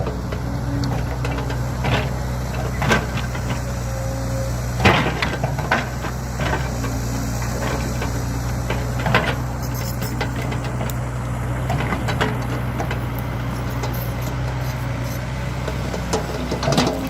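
Excavator's diesel engine running steadily, with scattered sharp knocks and rattles of metal and wood.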